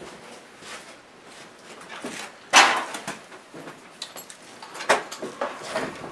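A heavy Suzuki 425cc twin-cylinder motorcycle engine being shifted and set down onto a steel mounting frame on a wooden bench. A sudden metal clunk and scrape comes about two and a half seconds in, followed by a few smaller knocks.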